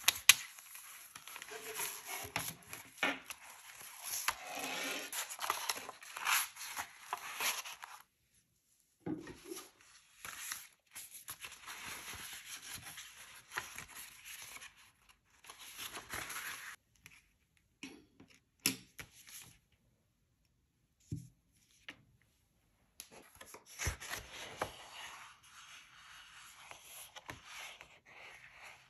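Paper being worked by hand for a handmade journal: sheets rustling, scraping and tearing in stretches of several seconds, with short pauses and a few sharp taps.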